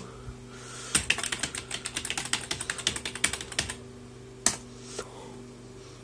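Computer keyboard being typed on, a rapid run of keystrokes entering a serial number for nearly three seconds, followed about a second later by one louder single click and a faint one after it.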